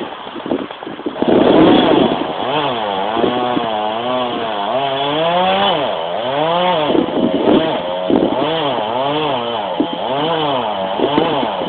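Petrol chainsaw running at high revs through a cut, its engine speed dipping and climbing again and again as the chain loads up and frees in the wood.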